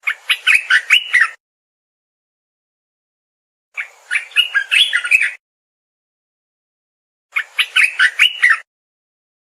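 Olive-winged bulbul (merbah belukar) singing: three short phrases of quick, bubbling whistled notes, each about a second and a half long, with pauses of about two seconds between them.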